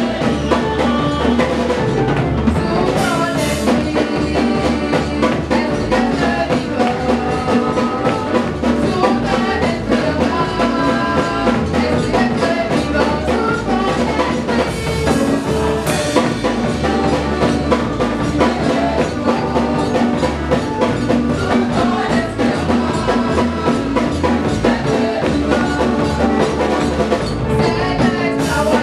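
Live church praise music: women singing through microphones over a drum kit, played without a break.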